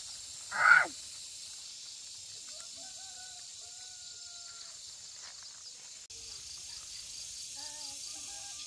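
Countryside ambience: a steady high insect drone, with one short loud call about half a second in and faint calls further off.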